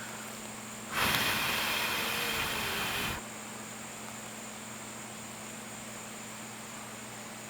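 A cicada giving a loud, harsh buzz for about two seconds, starting about a second in, the distress buzz of a cicada being held. A thin, steady high insect drone sits underneath.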